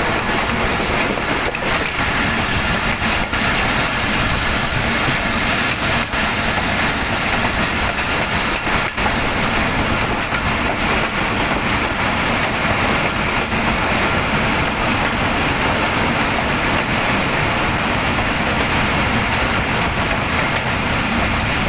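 Passenger train running along the track, heard from the coach window: a steady, loud rushing noise of wheels on rails, with a few faint clicks.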